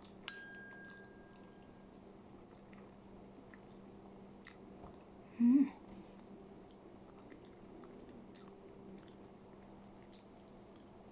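Close-up chewing and mouth sounds of someone eating pasta, with many small soft clicks. A sharp clink with a short ring comes just after the start, and a brief loud sound from the mouth with a rising pitch comes about halfway through.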